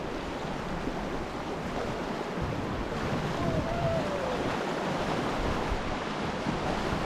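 River water rushing steadily through rapids around an inflatable raft, an even wash of water noise. A faint distant voice calls briefly about three and a half seconds in.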